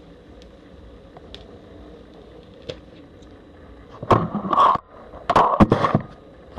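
Scraping and rubbing handling noise, in two short loud bursts with sharp clicks among them, about four and five seconds in, after a few faint ticks.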